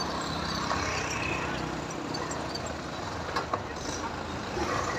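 A tractor's diesel engine running steadily as the tractor drives along a road, with a few faint clicks about three and a half seconds in.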